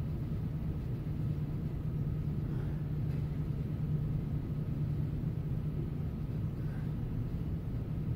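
A steady low rumble of room background noise with a faint hum, unchanging throughout.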